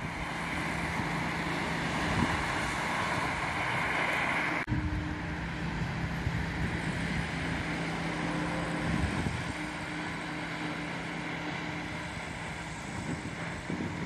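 Road traffic ambience: a steady low engine hum with tyre hiss on wet tarmac. The sound changes abruptly about four and a half seconds in.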